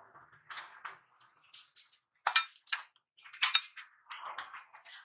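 Scattered light clinks and taps, about a dozen short separate knocks, from small hard objects being handled.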